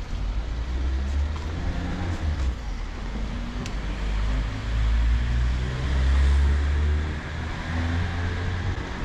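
Street traffic: a motor vehicle's engine rumble swells as it passes close, loudest about six seconds in.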